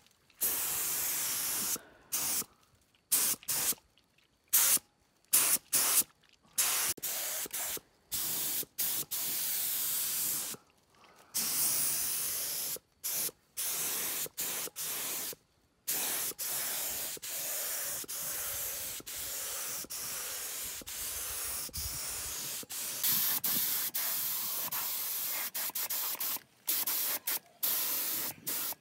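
Air-powered gravity-feed paint spray gun hissing as it sprays paint, switched on and off in many short trigger bursts with sudden gaps, then held in longer, nearly unbroken passes through the second half.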